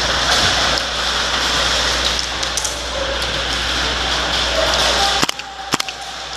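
Two sharp shots about half a second apart from a KWA LM4C gas blowback airsoft rifle fired in semi-auto, near the end, over a steady noisy din.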